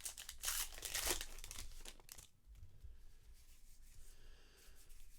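Trading card pack wrappers crinkling and tearing as packs are opened and handled, loudest in the first second, then quieter rustling.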